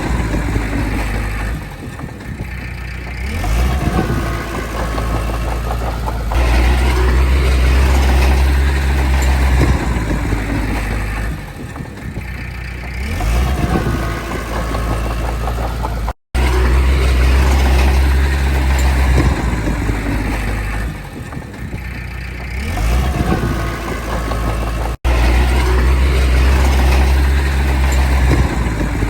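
Komatsu D20P crawler bulldozer's diesel engine working under load, its note swelling and easing in a repeating cycle of about ten seconds. The sound cuts out for an instant twice.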